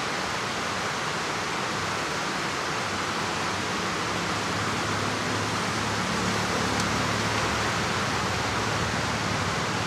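A steady, even rushing hiss with no rhythm, joined by a faint low hum about halfway through.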